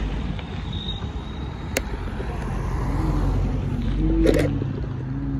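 Cars driving slowly past at low speed, their engines running. Near the end a McLaren sports car's engine grows louder as it comes closer, with a short crackle about four seconds in.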